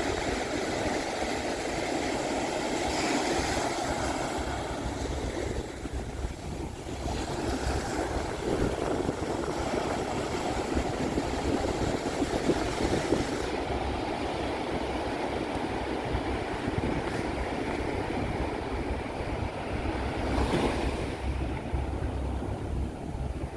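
Pacific Ocean surf breaking and washing up a sandy beach in a steady rush, with wind buffeting the microphone in a low flutter.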